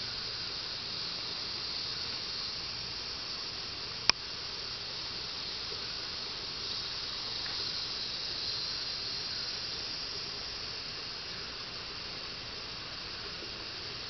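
Steady high-pitched drone of tropical rainforest insects, with a single sharp click about four seconds in.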